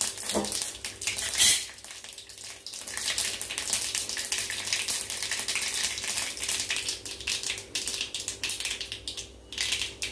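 Mustard seeds spluttering in hot coconut oil in a kadai: a rapid crackle of small pops, thickening from about three seconds in. A brief louder burst comes about a second and a half in.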